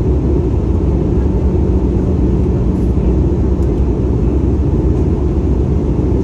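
Steady cabin noise of a twin-engine jet airliner in flight, heard from inside the cabin: a dense low drone of engines and airflow with a faint steady hum underneath.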